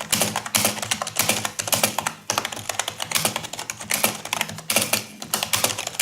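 Fast typing on a low-cost membrane-style (non-mechanical) backlit USB keyboard: a rapid, uneven run of soft key clicks with a brief pause about two seconds in.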